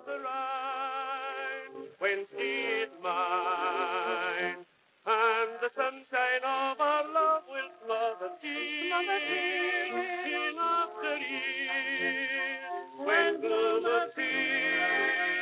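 Background music: a melody with a wavering vibrato carried over sustained lower chords, with a brief break about five seconds in.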